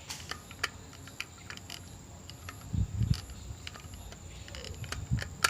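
Scattered light plastic clicks and taps as a Cacazi K01 wireless doorbell push-button is fitted onto its screwless snap-lock mount, with a few dull low thumps about halfway through and a sharp click near the end.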